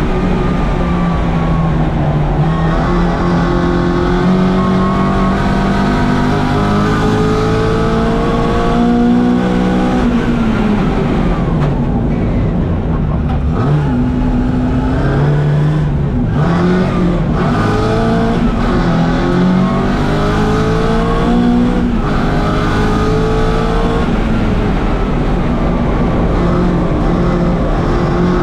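1964 Mini Cooper S's BMC A-series four-cylinder engine at racing speed under full throttle. The revs climb, drop sharply about ten seconds in, then climb again in a run of short rises through the gears.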